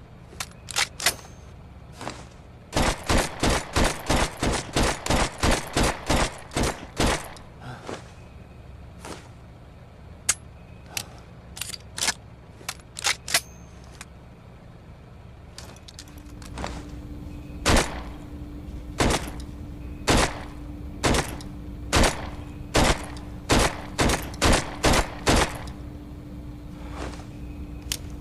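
Browning Hi-Power pistol gunshots: a few single shots, then a rapid string at about four shots a second for several seconds, then more scattered shots. In the second half the shots come about a second apart over a steady low hum.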